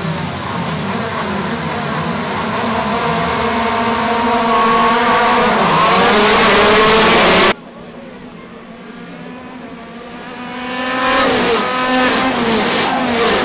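A pack of race kart engines revving on the starting grid and rising in pitch as the karts pull away together. About halfway through the sound cuts off abruptly and comes back quieter, then swells again as karts accelerate past.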